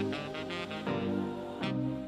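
Instrumental background music, a jazzy tune with a horn-like lead, its pitched notes changing every half second or so.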